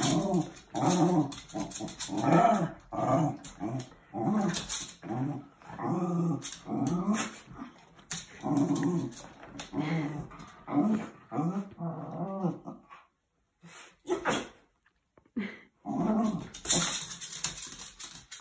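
Two small dogs playfighting, growling in short repeated bursts, with a pause of a few seconds about two thirds of the way through.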